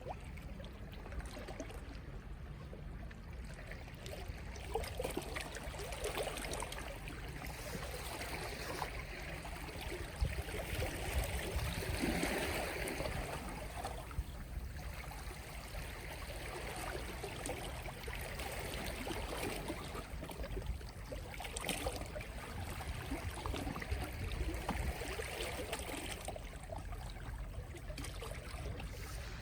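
Gentle sea waves lapping and washing on the shore: a steady wash of water that swells and falls back every few seconds, the largest swell about twelve seconds in.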